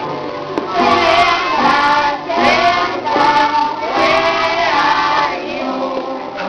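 Young children singing a song together as a group, with musical accompaniment.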